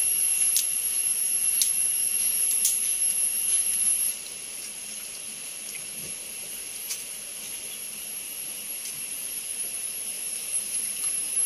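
A steady high-pitched hiss with a thin whistling tone running through it, dropping noticeably in level about four seconds in, with a few sharp clicks scattered over it.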